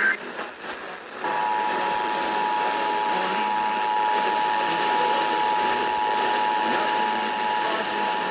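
Emergency Alert System attention signal: two steady tones of about 853 and 960 Hz sounding together, starting about a second in over a background hiss.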